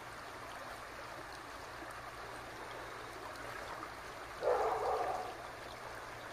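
Shallow river running over a riffle, a steady rushing of water. About four and a half seconds in, a brief louder burst of noise lasts under a second.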